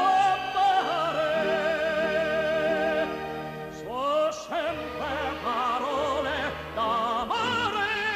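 Background music: an operatic voice singing long, sustained notes with wide vibrato over instrumental accompaniment, sliding up into a new phrase about four seconds in.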